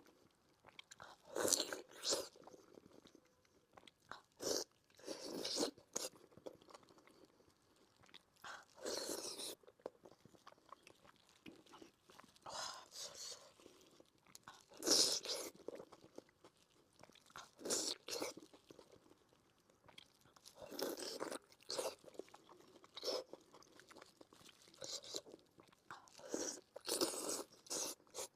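Close-miked mukbang eating sounds: wet chewing and smacking of soft braised pork belly in sauce, in separate bursts every second or two.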